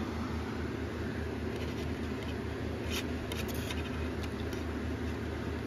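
Steady low background hum, with a few faint clicks and rustles about three seconds in as fingers handle DVD discs in their plastic case.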